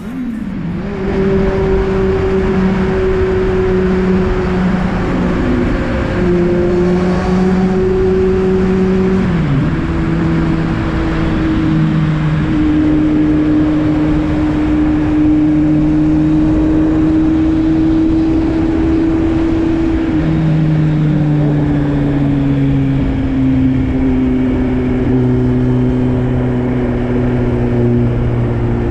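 Kawasaki Z750 inline-four engine running through an aftermarket Arrow exhaust, held at steady, fairly high revs. Its pitch drops lower about ten seconds in and shifts again around twenty seconds.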